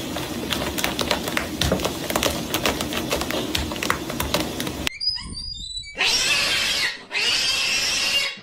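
Domestic cat purring loudly and steadily while it kneads, for about the first five seconds. Then a different cat hisses twice, each hiss about a second long, as it squares up to its own reflection in a mirror.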